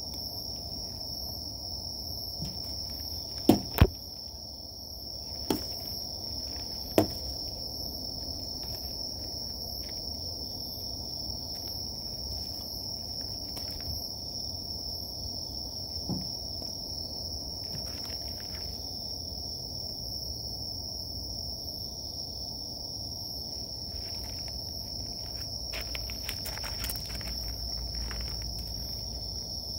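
Night insects singing in a steady, high-pitched chorus. A few sharp clicks cut across it: two close together about three and a half seconds in, then single ones near five and a half and seven seconds.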